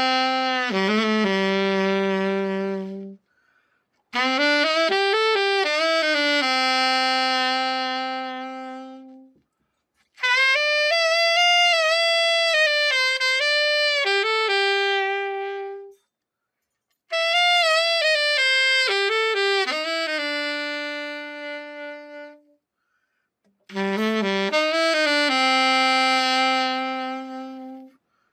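Yamaha YAS-280 alto saxophone played after a full overhaul: a melody in short phrases, each ending on a long held note, with brief silences between them.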